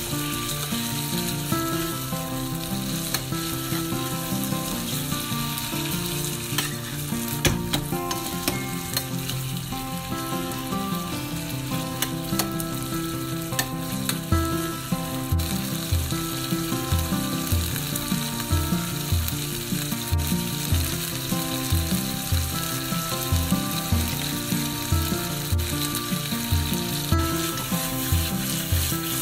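Miso-marinated beef tripe sizzling in hot oil in a frying pan, its fat rendering out, as a spatula stirs and scrapes it. Background music plays over it, and a low beat comes in about halfway through.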